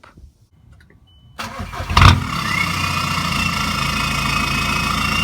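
2011 VW Jetta Sportwagen TDI's 2.0-litre common-rail four-cylinder diesel, with DPF, EGR and muffler deleted and straight-piped, starting: a short crank about a second and a half in, catching loudly at about two seconds, then settling into a steady idle with a thin high whine over it.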